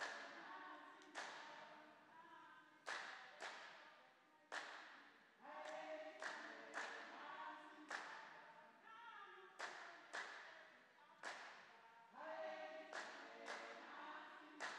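A woman singing unaccompanied, holding notes, with irregular sharp percussive hits about every second or so.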